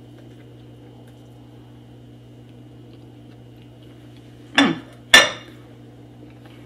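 A dinner plate set down on a hard surface: two sharp clattering knocks about half a second apart, a little after four and a half seconds in, over a faint steady hum.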